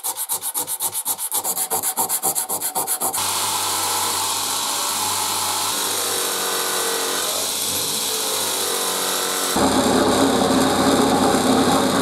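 Sandpaper rubbed by hand on a brass coffee-grinder part in quick back-and-forth strokes, about six a second. About three seconds in, this gives way to a bench grinder running steadily with a low hum as its wheel works the brass. About ten seconds in, a louder, rougher steady noise follows: a drill press spinning an abrasive bit against the part.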